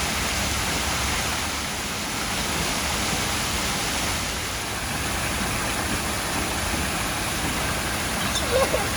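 Steady rushing of water from a swimming pool's waterfall feature, an even hiss with no rhythm.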